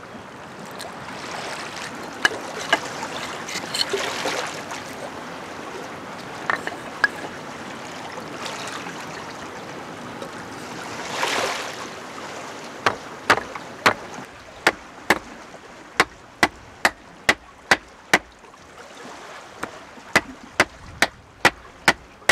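A hammer striking a small frame of split wooden sticks laid on a granite boulder: sharp, even blows about two a second through the second half, after a few scattered knocks. Small waves wash on the stony shore throughout.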